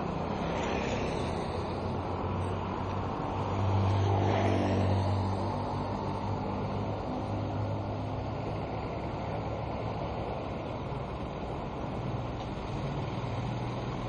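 Street traffic noise, a steady din from passing motor vehicles, with one vehicle's engine rising louder about four seconds in.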